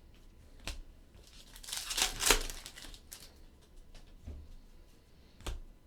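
Foil trading-card pack wrapper being torn open and crinkled, the tear loudest about two seconds in, with a couple of sharp taps.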